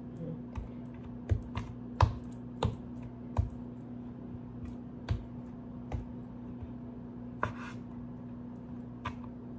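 A kitchen knife cutting soft bread dough, its blade knocking on a wooden cutting board in about ten irregular sharp taps. A steady low hum runs underneath.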